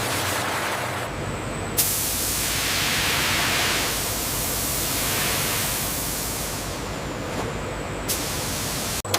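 Steady hissing rush of noise like a water spray, with a brighter, sharper hiss cutting in about two seconds in and stopping abruptly near the end.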